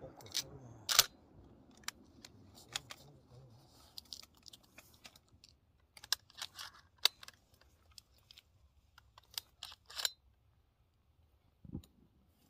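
Handling noise from a hunter's shotgun and camouflage clothing among willow branches: a scattered string of sharp clicks and light rustles, the loudest click about a second in, with a couple of dull thumps near the end.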